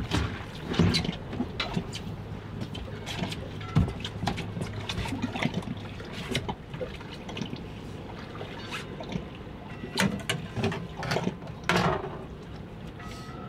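Water lapping and splashing against the hull of a small fishing boat, with scattered sharp clicks and knocks.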